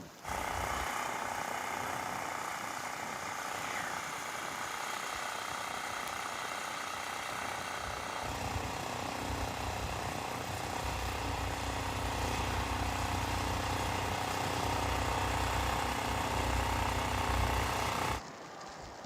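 Steady outdoor noise with a mechanical, traffic-like character. A deep low rumble joins about eight seconds in, and the sound cuts off abruptly near the end.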